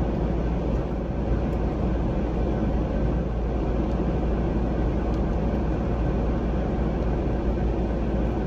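Steady low rumble of a car running, heard from inside the closed cabin.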